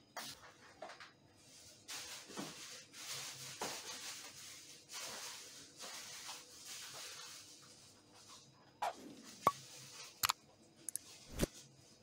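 Soft rustling and handling noises of kitchen prep, with a few sharp clicks and knocks in the last few seconds.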